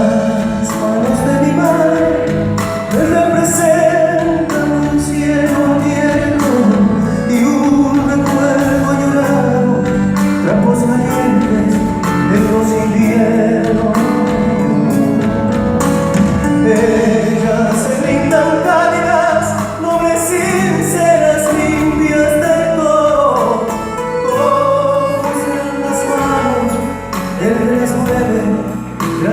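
Live performance of a folk song: singing over instrumental accompaniment, with long held notes that waver in vibrato.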